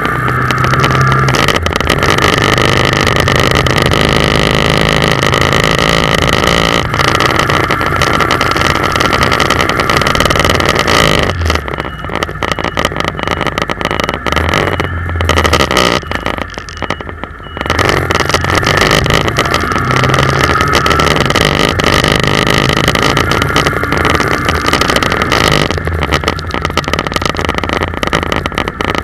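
Motorcycle riding along a road: the engine runs steadily under loud wind and road noise, its note shifting with speed. The sound eases off briefly twice near the middle.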